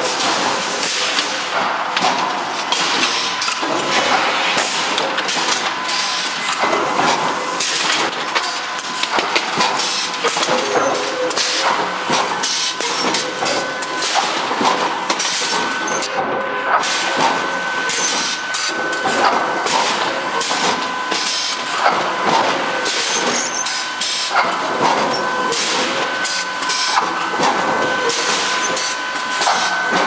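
Forge shop noise from an induction bar-heating and forging line: continuous metallic clatter and knocking with hiss, over a steady high whine.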